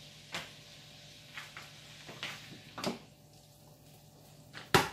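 Scattered sharp knocks and clicks of cookware and utensils being handled at the stove, about six of them, with the loudest near the end.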